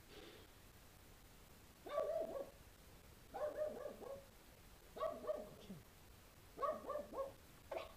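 A dog barking in repeated bursts, each a quick run of pitched barks falling in pitch, coming about every second and a half after a quiet first two seconds.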